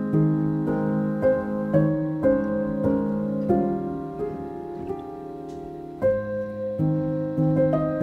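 Background piano music, slow held chords changing every half second or so, dipping quieter before a new, louder chord about six seconds in.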